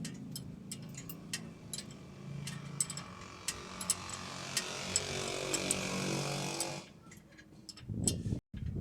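A power tool runs steadily for a few seconds and cuts off abruptly, amid scattered clinks and knocks of metal tools in an auto repair shop.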